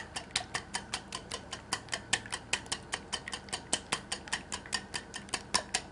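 Eggs being beaten with a wire hand whisk in a plastic bowl: fast, even clicking of the whisk against the bowl, about six strokes a second.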